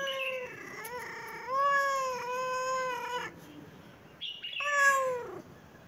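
Tabby-and-white cat meowing three times: a short call, a long drawn-out meow, and a last meow that falls in pitch.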